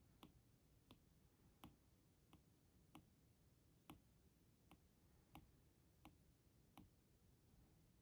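Faint clicks of a stylus tip tapping on an iPad's glass screen during short drawing strokes, about ten of them, roughly one every three-quarters of a second.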